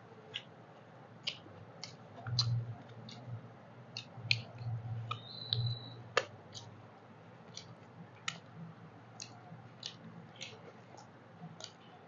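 Wet mouth clicks and lip smacks from people chewing rice and chicken curry eaten by hand, irregular, a couple a second, with a low hum rising a few times in the middle.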